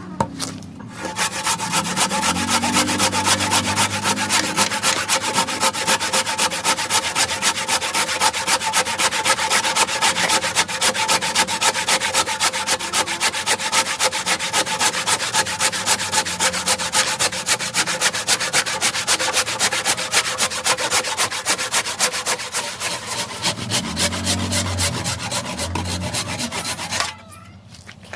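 Hasston Jet Cut 20-inch hand saw cutting through wood in quick, even strokes, about four a second, stopping abruptly near the end.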